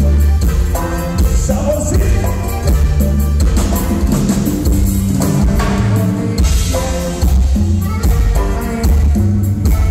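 A live band plays through the PA of a large hall: button accordion, congas, drum kit, electric bass and guitar, with a steady beat and heavy bass.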